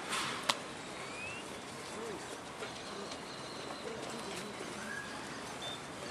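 Outdoor background with scattered short bird chirps and a few low coos, and one sharp crack about half a second in.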